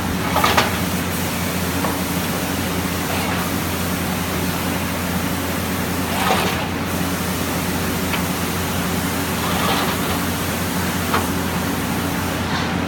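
Automatic painting line for concrete roof tiles running: a steady machine hum under a constant hiss, with short louder hisses about half a second in, around six seconds and near ten seconds.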